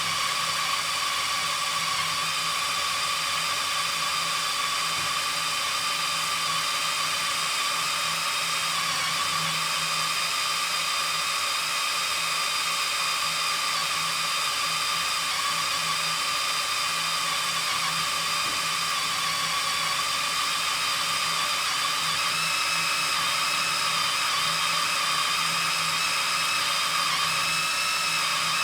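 Cordless drill boring into steel: the motor and bit run continuously with a steady, high-pitched whine over a low hum, and a further high tone joins in near the end.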